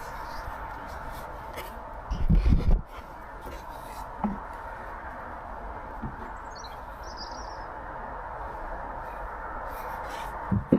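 Handling noise of a wooden block plane being turned over in the hands: a loud low rumble of knocks about two seconds in, then a few light clicks. A bird chirps faintly in the background about halfway through.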